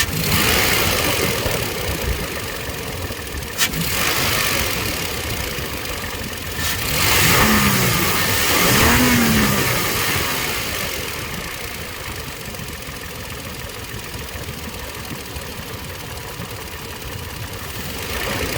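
Engine idling and opened up on the throttle: two revs about halfway through, each rising and falling in pitch, then back to idle, with a sharp click about three and a half seconds in. It is the weird noise the owner hears when throttling.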